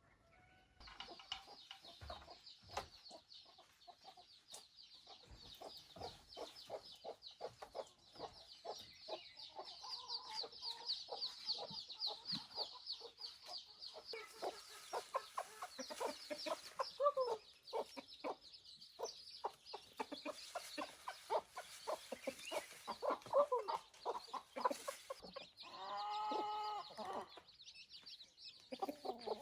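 Chickens clucking in a fast run of short calls, with one longer drawn-out call near the end.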